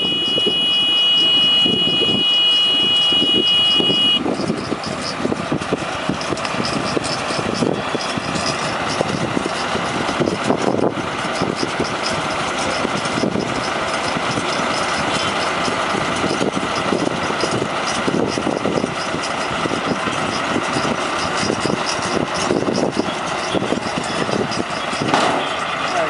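Tractor engine running under load with a Kartar Straw Warrior round baler working behind it, picking up and baling rice straw with a steady mechanical clatter. A steady high whine sounds for the first four seconds, then stops.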